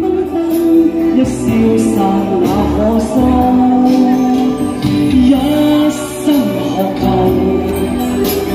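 A solo singer sings a Cantonese pop ballad over an instrumental backing track, holding long notes.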